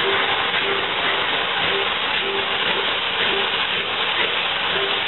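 Steam-hauled train running, heard from an open carriage window near Bulleid Battle of Britain class locomotive 34053: a steady rush of steam, wind and wheels on rail, with a short tone recurring every half second or so.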